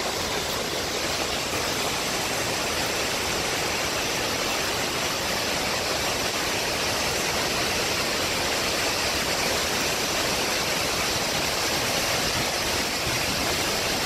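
Skógafoss waterfall plunging onto the rocks below: a steady, even rush of falling water that grows slightly louder toward the end.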